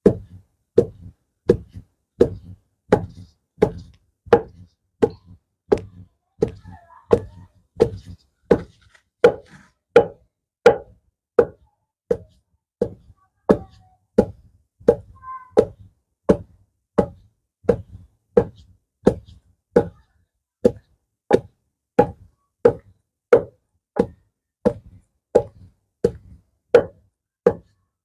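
Pestle pounding chopped pumpkin leaves in a mortar: a steady rhythm of knocks, about three every two seconds.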